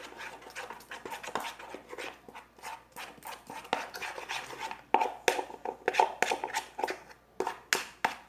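A spoon stirring thick slime in a pot: a run of irregular clicks and scrapes, with sharper knocks against the pot from about five seconds in.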